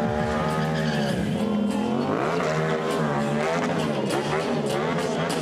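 Stunt motorcycle's engine revving, its pitch rising and falling several times as the rider works the throttle.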